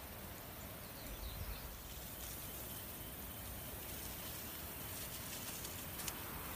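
Outdoor background noise: a steady hiss, with a few faint bird chirps and a brief low rumble about a second in.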